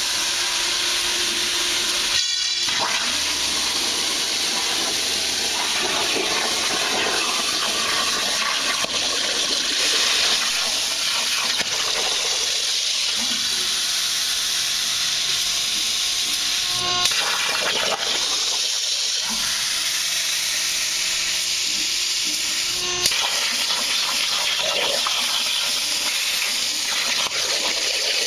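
Plasma cutter torch cutting steel plate over a water table: a steady, loud hiss of the arc and air jet, broken briefly a couple of seconds in, with a few sharp clicks later on.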